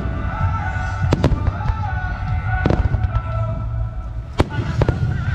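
Aerial fireworks shells bursting: four or five sharp bangs, spaced a second or more apart, over a constant low rumble.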